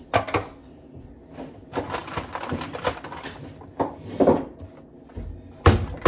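Irregular knocks and clatter from handling a food processor's plastic bowl and lid while dates are dropped in on top of bananas, with one heavier clunk near the end.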